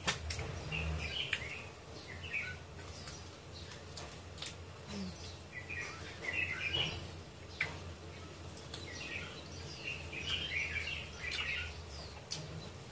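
Mouth sounds of eating chicken feet: chewing, sucking and smacking in irregular bursts, with a few small clicks, over a low steady hum.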